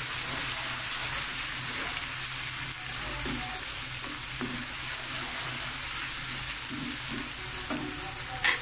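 Browned onions with green chilli and ginger-garlic paste sizzling steadily in hot oil in a non-stick frying pan, stirred with a spatula, with a short click near the end.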